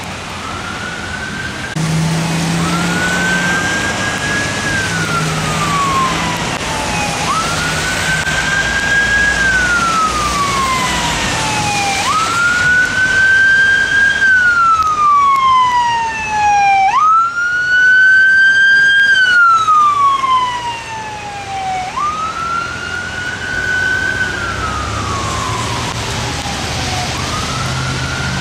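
Emergency vehicle siren on wail: a tone that rises quickly and then falls slowly, repeating about every five seconds and loudest a little past the middle, over a steady hiss of rain and wet tyres.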